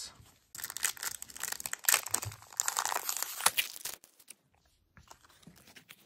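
Foil Pokémon booster pack wrapper being torn open and crinkled, a dense crackle lasting about three and a half seconds, then fading to faint handling sounds.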